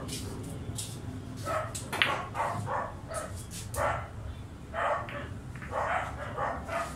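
A dog barking repeatedly in short, separate barks, with one sharp click about two seconds in.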